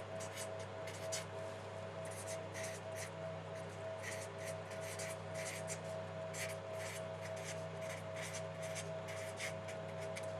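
Pen writing on paper: short, irregular scratching strokes, one after another, over a steady electrical hum.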